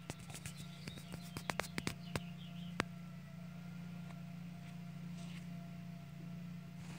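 A steady low hum of machinery. Sharp clicks and knocks from the phone being handled come in the first three seconds, with a few faint squeaks among them.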